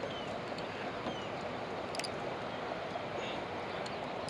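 Steady rushing noise of fast-moving river water below a dam, with a faint click about two seconds in.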